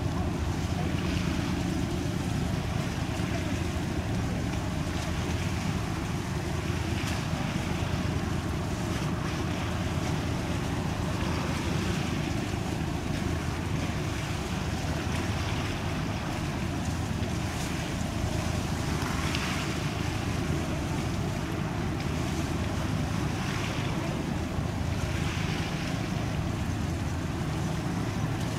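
Steady low drone of tugboat engines, with wind buffeting the microphone and the wash of water in soft swells.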